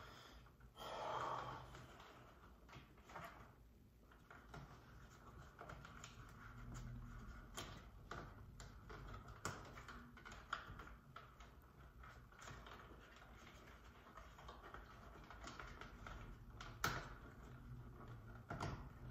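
Faint, irregular small clicks and taps of thermostat wires being worked into the push-in terminals of an Ecobee4 back plate, with a sharper click near the end and a brief louder noise about a second in.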